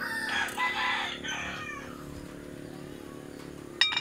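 A rooster crowing, one long crow that trails off about two seconds in, over a low steady hum. A brief sharp knock near the end.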